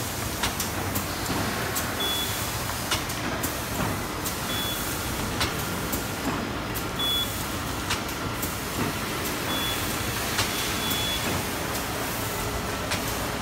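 CHOVYTING CW-800HCB isothermal bag cutting machine running: a steady mechanical din with frequent sharp clicks and knocks, and a short high blip every couple of seconds.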